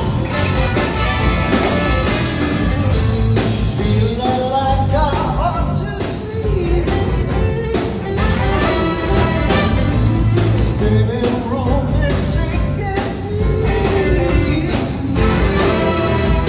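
Live rock band with a horn section of saxophones, trombone and trumpet, plus keyboards, guitar and drums, playing a song with a steady beat under a gliding melody line.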